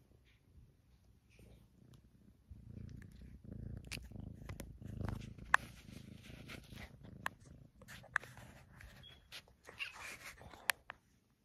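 Tabby kitten purring close to the microphone, a low rumble that swells from about two seconds in, with the rustle of its fur brushing against the phone and several sharp clicks, the loudest a little past the middle.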